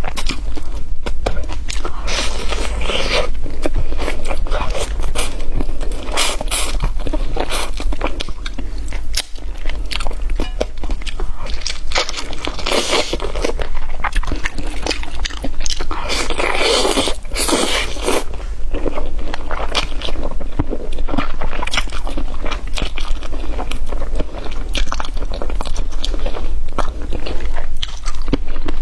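Person biting and chewing crisp fried pork ribs close to the microphone, with dense irregular crunches and clicks over a steady low hum.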